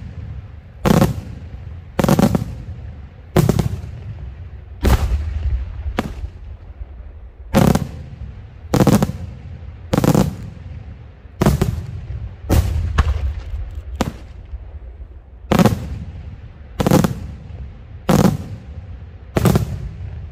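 Daytime aerial firework shells bursting overhead in a steady series of loud bangs, about one every second and a quarter, each followed by a rolling echo.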